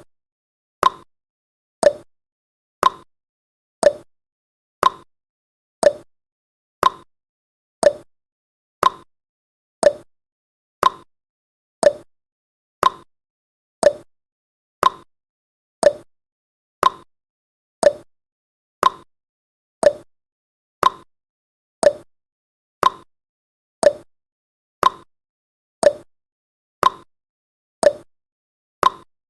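Clock-tick sound effect of a countdown timer: a short, sharp tick once every second, evenly paced.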